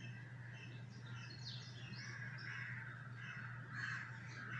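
Birds chirping and calling, many short faint calls, over a steady low hum.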